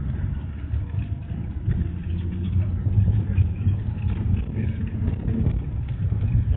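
Low, steady rumble of a minibus's engine and running gear, heard from inside the cabin while it drives along.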